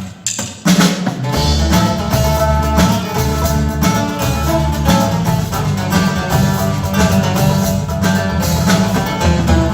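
Upbeat instrumental music with plucked strings, a steady beat and a strong bass line.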